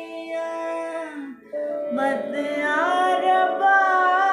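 A woman singing a thumri in raag Mishra Khamaj, drawing out the word "batiyaan" twice in long, ornamented held notes with a short breath between them about a second and a half in. A steady drone note sounds beneath the voice.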